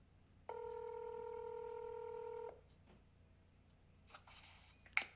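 Outgoing phone call's ringback tone over the phone's speaker: one steady ring lasting about two seconds while the call waits to be answered. Near the end come faint rustling and a sharp click.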